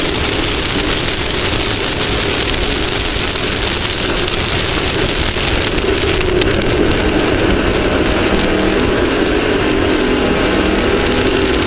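Off-road race vehicle at speed, its engine running steadily under load beneath a constant hiss of wind and terrain noise, picked up by a camera mounted on the front of the vehicle.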